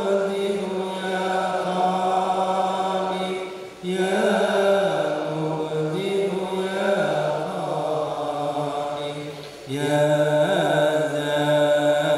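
Male chanting of Islamic dhikr in long, held, melodic phrases. The phrases break briefly about four seconds in and again near ten seconds in.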